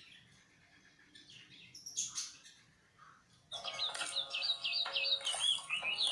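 Bird chirping: a few faint high chirps, then about three and a half seconds in a fast run of quick, high whistled notes that bend up and down.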